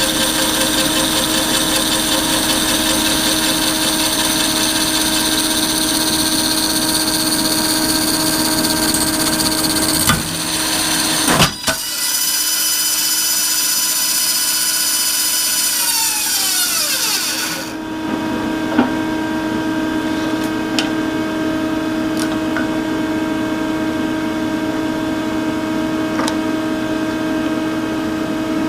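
MiniMax MM16 bandsaw with a 1-inch carbide-tooth resaw blade running steadily alongside a dust collector. About eleven seconds in there is a sudden bang and clatter as the bottom urethane tire blows off the wheel, then the saw's whine falls in pitch as it coasts to a stop about six seconds later. The dust collector keeps running, with a few light clicks.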